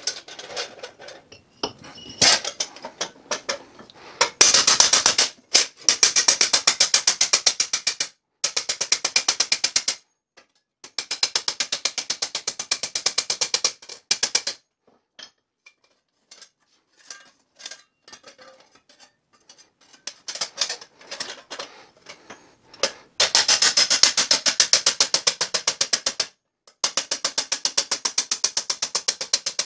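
Claw hammer tapping rapidly on thin steel sheet, folding the tabs of a bucket forge kit flat over its bottom panel against an anvil-shaped block. The taps come in quick runs of a few seconds each with short pauses between, and a longer lull of scattered light taps in the middle.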